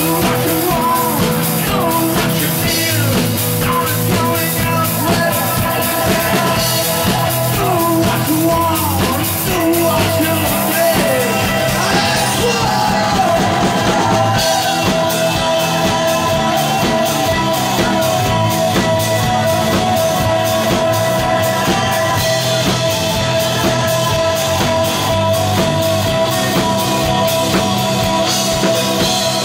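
Live rock band playing: drum kit, electric guitar and singing, loud and with a steady beat.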